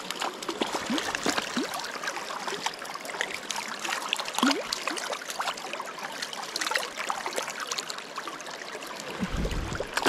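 River water running and rippling around the wading angler's legs, with small, irregular splashes from a hooked trout thrashing at the surface. A dull low thump comes just before the end.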